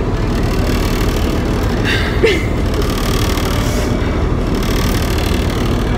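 Tour boat's engine running steadily, a loud low drone heard from inside the wooden cabin. A short high-pitched sound cuts in about two seconds in.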